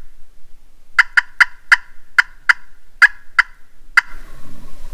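Turkey call cutting: nine short, sharp turkey notes in quick, uneven succession, starting about a second in and stopping about four seconds in, as a hunter calls to strike up a gobbler.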